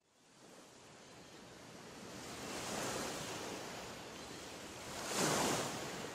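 Sea waves washing onto the shore, fading up from silence, with two swells, the larger about five seconds in.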